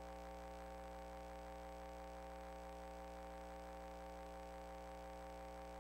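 Faint steady hum made of several fixed tones over a low hiss, unchanging throughout.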